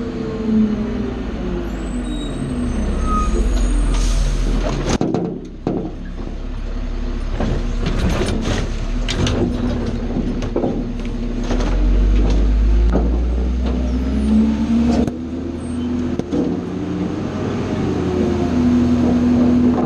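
Garbage truck engine running, revving twice to drive the hydraulic packer, with a loud hiss about four seconds in. In the middle come a run of knocks and thuds as a cart is dumped into the hopper, and the packer sweeps the bagged trash out of the hopper.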